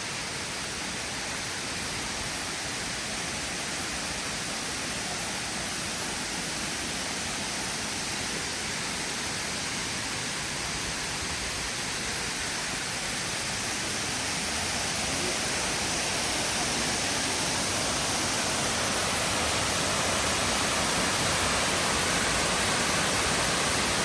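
Steady rushing of a waterfall, growing gradually louder over the second half.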